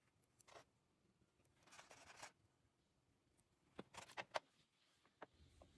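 Faint clicks of small beads being handled and slid onto beading wire, with a short stretch of soft rustling about two seconds in and a quick run of sharp clicks around four seconds in.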